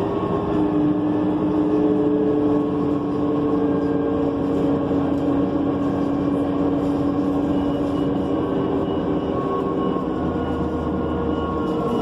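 Inside a New Flyer C40LF bus under way: its John Deere 6041H engine and ZF Ecomat automatic transmission running, with a steady drivetrain whine whose pitch drifts slowly over the road noise. A deeper hum comes in near the end, and a faint evenly pulsed high tone sounds through the second half.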